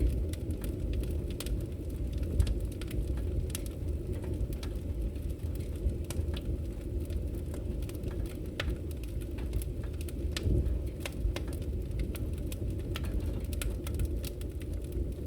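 Wood fire burning, with a steady low rumble and frequent sharp crackles and pops at irregular intervals.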